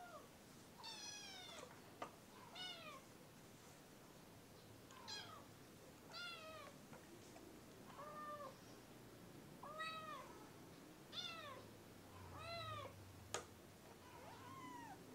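Kitten meowing over and over: about nine short, high calls that rise and fall in pitch. Two sharp clicks cut in, one about two seconds in and a louder one near the end.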